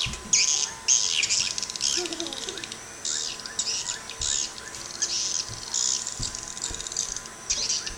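HY Crystal swiftlet lure call played through a speaker: repeated high twittering chirps, about two a second, over a faint steady tone.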